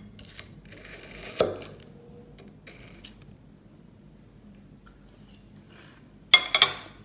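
A metal fork clinking and scraping against a plate of watermelon chunks. There is a sharp clink about a second and a half in, and a cluster of loud clinks near the end as the fork is set down on the plate.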